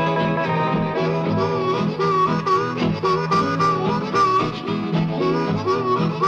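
Country boogie music: a harmonica solo with held, wavering notes over a steady guitar rhythm.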